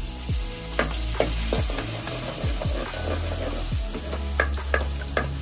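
Hot oil in a metal wok over a wood fire sizzling as a pounded paste of garlic, ginger and cinnamon goes in; the hiss starts suddenly. A metal ladle scrapes and clicks against the pan as the paste is stirred.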